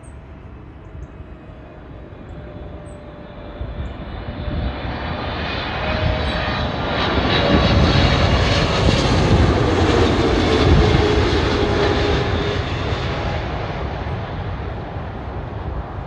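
Boeing 777 jet airliner passing low overhead on final approach with its landing gear down. The engine noise swells to its loudest about eight to eleven seconds in, with a whine that falls in pitch as the plane passes, then fades as it heads away toward the runway.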